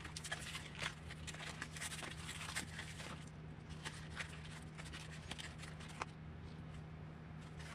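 Plastic blister pack of RC driveshafts being handled and opened: irregular small crinkles and clicks of stiff plastic, over a steady low hum.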